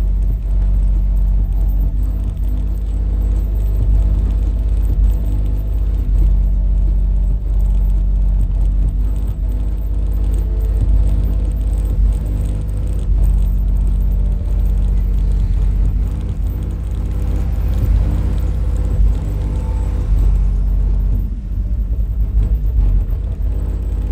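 Loud, deep bass from a 15-inch Deaf Bonce Machete Fight Series car subwoofer driven by a 1500 W mono amplifier, playing music hard enough to flex the car's rear windshield. Heard from outside the closed car, it is mostly a continuous low rumble.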